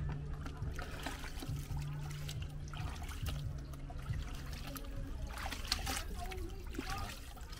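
Water splashing and dripping in a plastic bucket as wet scraps of leftover meat are lifted out by hand and dropped into a plastic basin, in short irregular splashes and trickles. A low steady hum runs under the first half.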